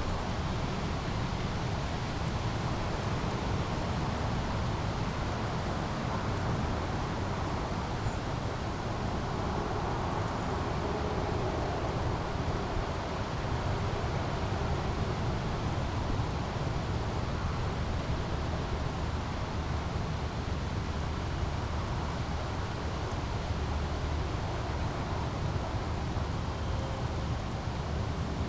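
Small brook flowing steadily over a low, even rumble, with a few faint high bird chirps scattered through.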